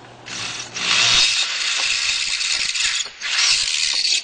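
Power drill boring two small holes through the car's dashboard panel: one run of nearly three seconds, a brief pause, then a second run of about a second that stops abruptly.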